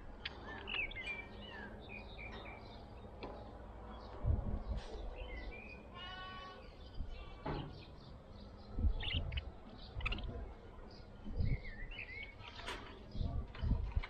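Budgerigars chirping and chattering: many short chirps and warbling, sliding notes, with a longer harsher call about six seconds in. Low thumps come and go underneath, several times.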